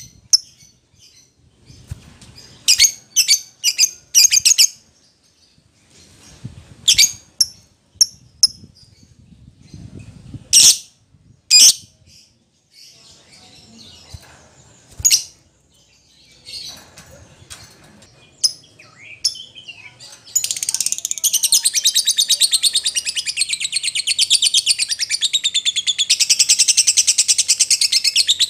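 Lovebird calling: short, sharp, high-pitched chirps in quick clusters with gaps between, then about 20 seconds in it breaks into a long, continuous rapid chattering song. This is the agitated 'fighter' lovebird song used to provoke other lovebirds into answering.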